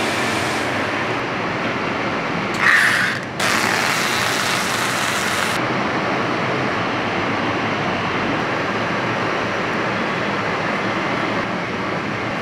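Steady running noise of factory machinery in a paper and tape converting plant, with a brief louder noise about three seconds in.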